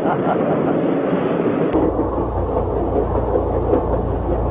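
A steady low rumble with noise, cutting in abruptly after a click about two seconds in.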